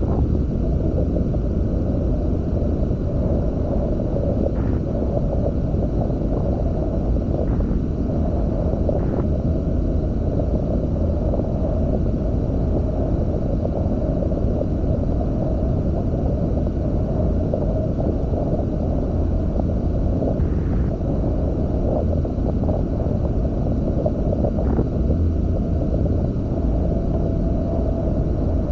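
Steady wind rumble on the camera microphone and water rushing past a Hobie Tiger F18 catamaran under sail, with a few faint brief taps.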